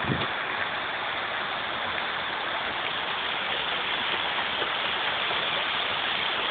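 Illuminated fountain's many water jets splashing into the pool: a steady rushing hiss of falling water.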